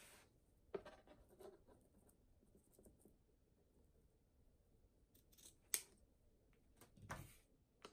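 Scissors cutting through the end of a fabric ribbon at an angle: a few quiet snips and blade clicks, the sharpest a little over halfway through and another near the end.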